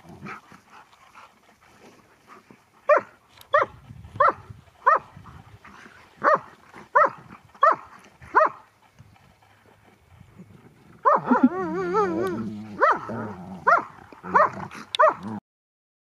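Dogs barking in rough play: a run of about eight short, high barks, roughly two a second, a few seconds in. Then a louder wavering, warbling call and more barks, cutting off suddenly near the end.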